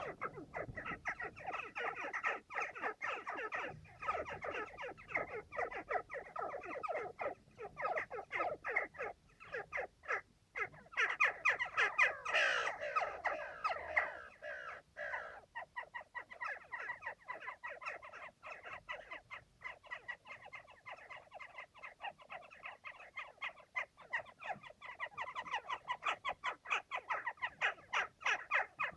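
Western jackdaws calling at their nest in a chimney, a dense, continuous stream of short calls several a second, loudest about halfway through. Heard through an air vent.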